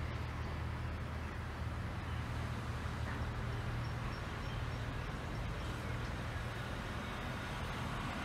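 Diesel locomotive engine running steadily close by, a low, even hum.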